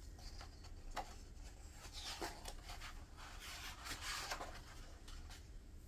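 Pages of a hardbound book being turned by hand: a few faint paper rustles and soft flicks.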